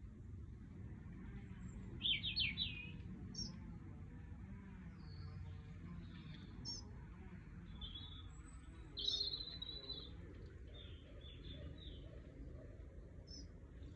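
Small songbird calling: scattered short high chirps and brief trills, loudest about two seconds in and again about nine seconds in, over a steady low rumble.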